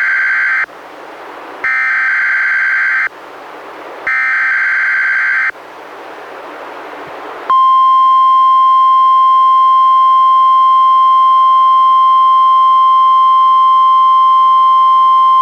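NOAA Weather Radio SAME digital header heard through a weather radio: three buzzy data bursts of about a second and a half each, with radio hiss between them. About two seconds after the last burst, the steady 1050 Hz warning alarm tone starts and holds, announcing a Required Weekly Test.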